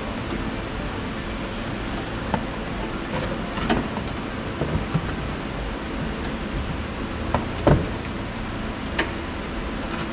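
Scattered metallic clicks and knocks of hand tools working the nut on a new anti-roll bar link in a car's front wheel arch, over a steady fan-like hiss. The loudest knock comes about two-thirds of the way through.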